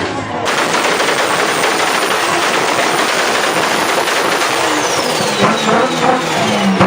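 Turbocharged car under power: a loud, even rush of engine and air noise starting suddenly about half a second in, with a thin high whistle falling slowly in pitch over the second half.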